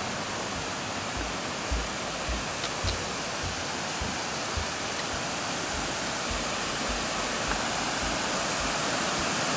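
Steady rushing of a cascading waterfall, Roughlock Falls, growing slightly louder toward the end. Low thumps come about twice a second in step with walking.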